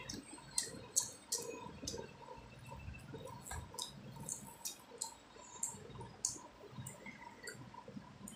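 Spoons scooping rice from a plastic food container: irregular light clicks and taps of spoon against the container, about one or two a second.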